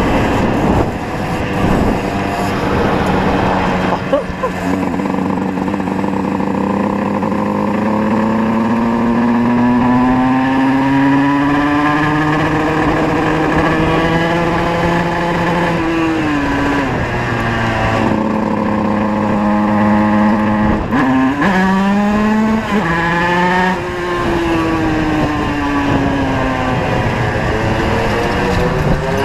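Tuned 50cc two-stroke moped engines running on the move. One engine's note climbs slowly for several seconds, drops off sharply about halfway through, then rises again and falls away slowly near the end, while another holds a steady note underneath.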